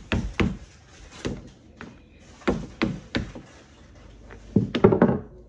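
Hammer tapping a freshly glued replacement sole onto a Birkenstock sandal to press it down: dull knocks in small irregular groups, with the loudest cluster of knocks near the end.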